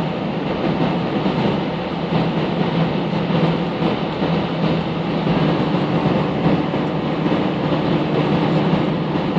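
Cabin noise inside an Airbus A319-111 rolling on the ground after landing: the steady drone of its CFM56 engines with a low hum, mixed with the rumble of the landing gear on the pavement.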